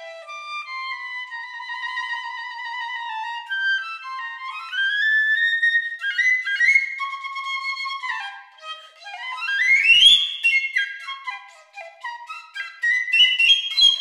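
Solo piccolo playing a melody: long held notes at first, then fast rising runs about a third of the way in and again past the middle, followed by quick repeated, fluttering notes toward the end.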